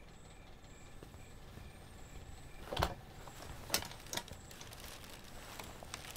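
Quiet room tone broken by a few short clicks and knocks near the middle, then fainter ticks: small objects being handled on a table.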